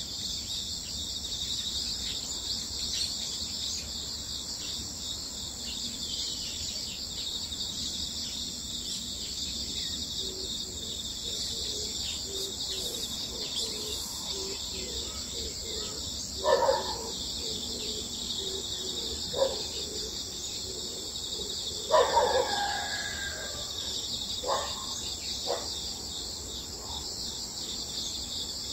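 Dawn chorus in the countryside: a steady, high-pitched chorus of insects runs throughout. A handful of short bird calls break in over it from a little past the middle, the loudest a pair of clusters about halfway and three quarters through.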